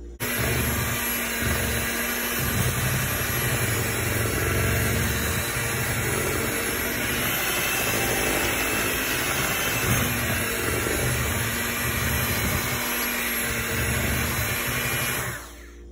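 Electric hand mixer running, its twin beaters churning muffin batter in a plastic bowl. It switches on just after the start and cuts off shortly before the end.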